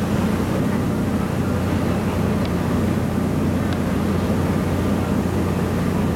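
Steady low drone of a tour boat's engine under way, with the rush of water and wake along the hull.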